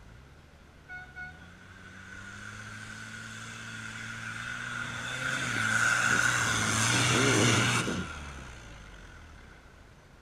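Off-road 4x4 SUV's engine working hard up a steep dirt bank, growing louder as it nears, with the tyres spinning and throwing up dirt; the loud part cuts off abruptly about eight seconds in and the engine fades. Two short high beeps about a second in.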